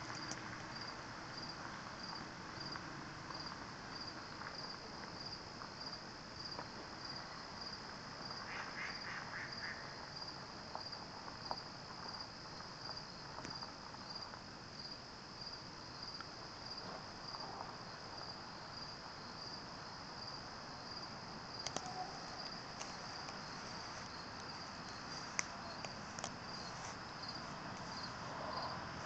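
Crickets chirping faintly, an even rhythm of about two chirps a second that never breaks, with a short higher trill about a third of the way through.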